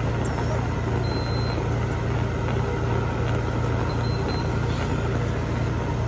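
Respiratory-therapy equipment running with a steady low mechanical buzz that pulses rapidly.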